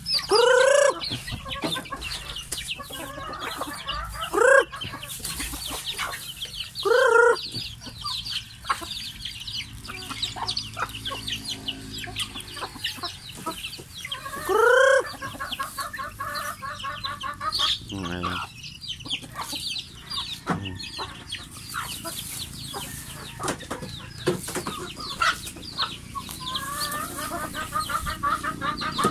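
A flock of chickens clucking and calling, with four loud, short, rising calls standing out and stretches of quick, repeated clucking.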